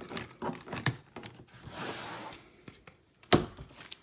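Hands handling trading cards on small plastic display stands: scattered light taps and clicks, a soft sliding hiss about halfway through, and one sharper click a little past three seconds in.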